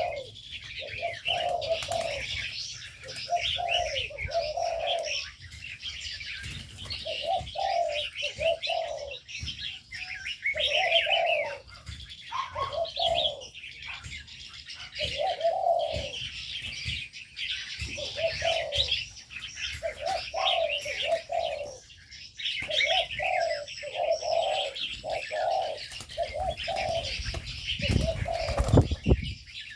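Aviary birds calling: spotted doves cooing over and over in low phrases, with smaller birds chirping continuously higher up. There is a brief low thud or rumble near the end.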